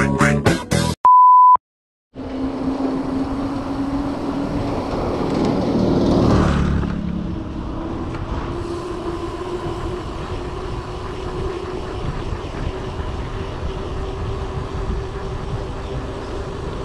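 The end of upbeat intro music, then a short, loud, steady beep about a second in. After a brief silence comes a steady rumble of wind and road noise on a bicycle-mounted action camera as the bike rolls along a paved road, with a motor vehicle passing about six seconds in, rising and then fading.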